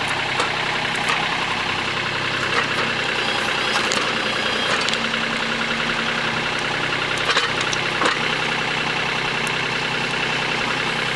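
Cub Cadet Yanmar EX3200 compact tractor's diesel engine running steadily while the backhoe works, with a steady whine over it and a few short clanks.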